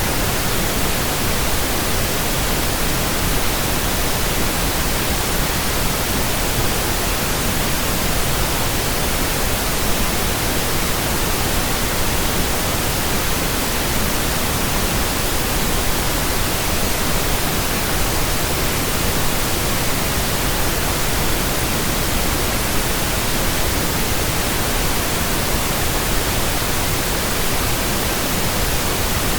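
Steady pink noise: soft, even static like a radio not tuned to a station, unchanging throughout.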